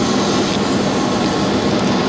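HVAC air handler's blower running: a loud, steady rush of moving air with a low, even hum.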